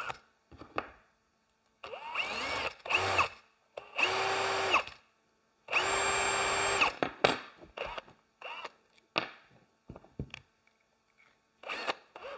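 Power drill run in three short bursts of about a second each, the first rising in pitch as it spins up, drilling a hole, with short knocks of handling between the bursts.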